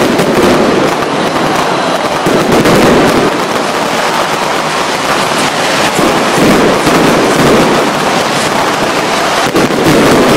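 Aerial fireworks going off in a dense, continuous barrage of bangs and crackling, loud throughout, with heavier swells of booms every few seconds.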